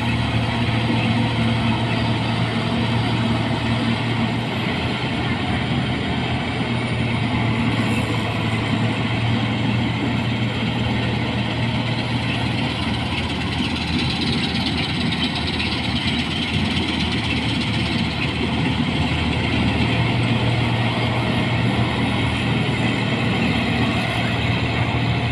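New Holland 8070 combine harvester running steadily under load while cutting and threshing a standing crop: a continuous loud engine drone with the whirr of the header and threshing machinery.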